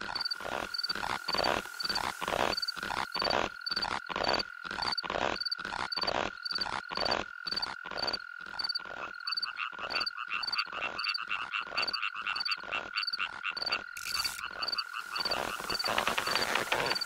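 Frog croaking in an even rhythm, about three croaks a second, over a steady high insect-like trill; from about halfway a faster, higher chirping joins in.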